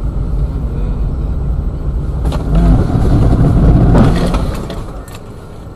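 Car engine and road noise, a low rumble that swells louder for a couple of seconds midway, then falls away.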